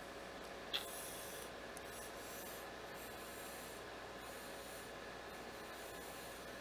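Faint, on-and-off crackling hiss of a Kayfun Mini rebuildable atomizer being drawn on through its tightened airflow, its dual cotton-wicked micro coils sizzling as they fire. A small click comes under a second in.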